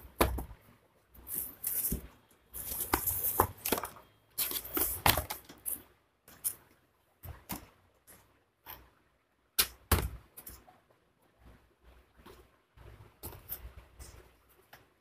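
Unboxing handling noise: the white protective wrapping rustling and crinkling as an Acer One 10 tablet and its keyboard dock are lifted out of a cardboard box, in irregular bursts. A few sharp knocks of plastic against cardboard come through, the loudest at the very start and near 10 seconds in.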